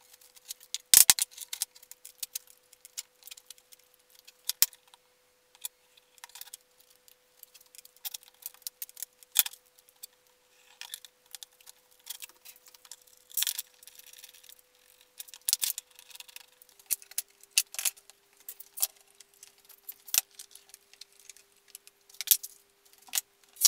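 Irregular light knocks and clicks of glued wooden strips being handled and pressed together on a workbench, with metal clinks as steel bar clamps are set across the panel.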